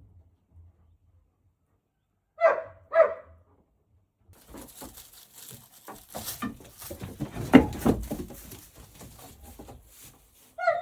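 A dog barks twice in quick succession, followed by several seconds of rustling and knocking with one louder thump partway through. Another bark comes right at the end.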